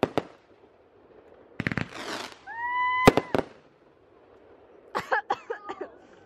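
Consumer aerial fireworks bursting overhead. A couple of sharp bangs come at the start, a crackling burst about a second and a half in, a loud bang at about three seconds, and a quick run of pops near five seconds.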